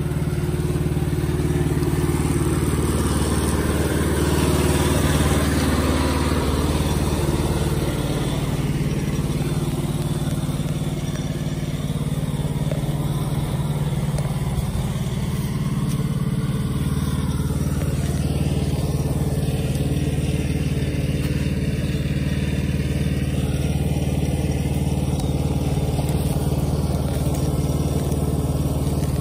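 Small 6.5 hp single-cylinder engine running steadily under load as the tractor's tyres spin and dig through mud, throwing dirt.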